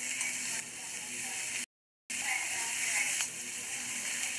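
Okra sizzling in hot oil in a steel kadhai while a metal spatula scrapes and rattles against the pan as it is stirred. The sound cuts out completely for about half a second near the middle.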